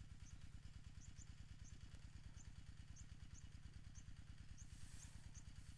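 Near silence with a faint, steady low hum from a small engine running far off, pulsing rapidly, and faint short high chirps about twice a second.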